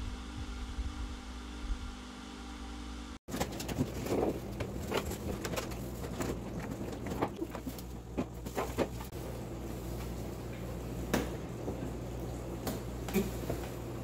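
Top-freezer refrigerator running with a steady hum for about three seconds. After a cut, irregular clicks, knocks and rustling of hands handling parts inside the freezer compartment, over a low steady hum.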